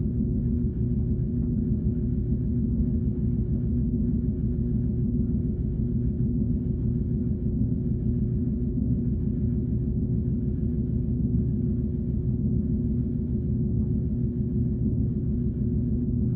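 Sci-fi 'alien tone' sound effect: a steady low electronic drone with one held tone, and a faint flutter above it pulsing about one and a half times a second.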